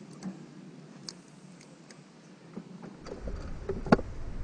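Light scattered ticks and taps from hands handling fishing tackle and a steel bait bucket. About three seconds in a low rumble sets in, and a single sharp, loud click follows near the end.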